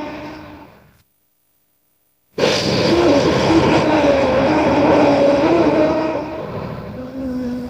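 Custom Giganotosaurus roar sound effect, layered from other animal and monster roars. One roar fades out, then there is a gap of dead silence. A new long roar starts abruptly about two and a half seconds in, its pitch wavering, and drops lower and quieter near the end.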